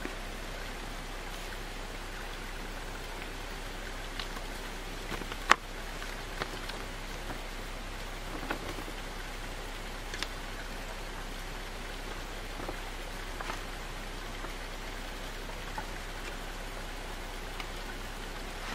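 Paper pamphlets and a booklet handled on a wooden counter and their pages leafed through, with small ticks and rustles and one sharp tap a few seconds in, over a steady rushing background noise.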